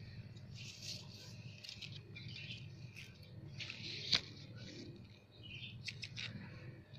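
Leaves of a small water apple tree rustling as hands and the phone move through the foliage, with faint bird chirps behind. A single sharp click about four seconds in.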